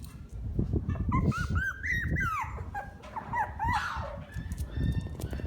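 Shiba Inu whimpering in two runs of short, high squeaky whines that rise and fall, over low thumps and knocks.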